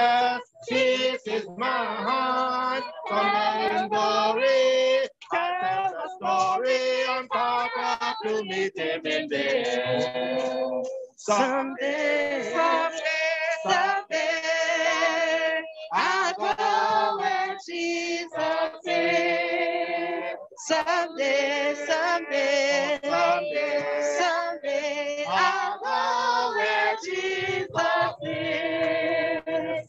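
A group singing a hymn, with women's voices leading, in sung phrases broken by short pauses.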